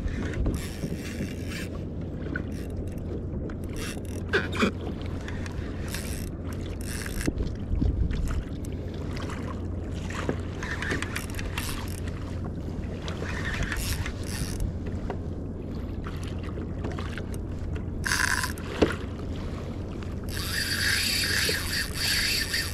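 Large spinning reel being cranked under load against a big fish, with water slapping and splashing against a plastic kayak hull. There is a steady low rumble of wind on the microphone throughout, and a louder stretch of rushing water hiss near the end.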